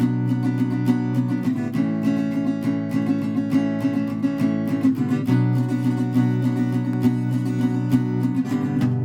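Recorded acoustic guitar strumming chords in a steady rhythm, moving to a new chord about every three to four seconds.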